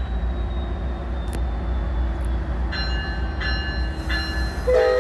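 Metra F59PHI diesel locomotive rumbling at the head of its train. A little past halfway a high ringing starts in short repeats, and near the end the locomotive's horn begins to blow a loud multi-note chord.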